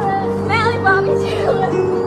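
Background music of low, sustained held notes, with a brief wavering higher line about half a second in.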